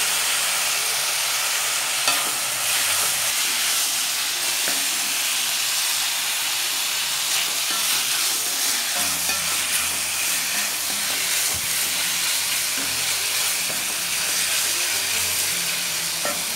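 Sliced ivy gourd and green chillies sizzling steadily in hot oil in a kadai while a wooden spatula stirs them, with occasional light scrapes and taps of the spatula against the pan, as the salt is mixed in.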